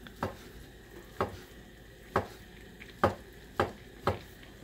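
Kitchen knife cutting food down onto a cutting board: six separate sharp knocks, about a second apart at first and quicker near the end.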